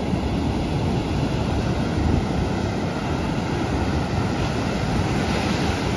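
Sea surf breaking and washing up a sandy beach, a steady rushing noise, with wind rumbling on the microphone.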